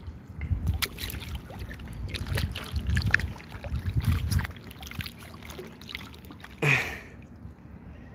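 Kayak paddle strokes in calm lake water, with water trickling off the blade and scattered light knocks. A brief vocal exclamation comes near the end.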